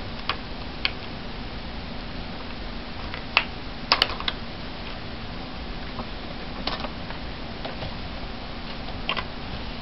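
Scattered light plastic clicks and taps as clear stamps are peeled off their plastic carrier sheet and handled against a clear acrylic block, about half a dozen in all with a quick cluster of three about four seconds in.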